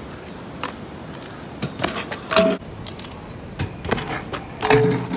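A metal stunt scooter clattering on concrete as the rider bails off a ledge. It is a run of sharp knocks and metallic clinks, the loudest with a brief ring a little over two seconds in, and another loud knock near the end.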